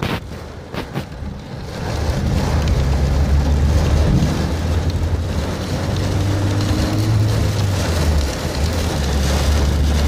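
Torrential rain beating on a moving vehicle, heard from inside the cabin, over the steady low rumble of the engine and tyres on the wet road. It is softer for the first two seconds, then steady and loud.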